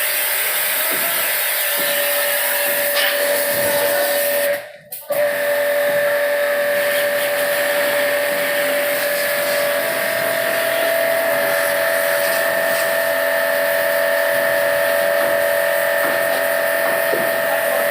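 Pressure washer running steadily, its water jet hissing over a steady motor whine; it cuts out briefly about five seconds in, then starts again.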